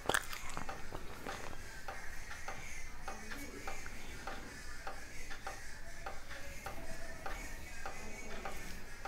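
Pieces of baked clay pot being chewed, with crisp crunches about two to three a second and a louder bite right at the start.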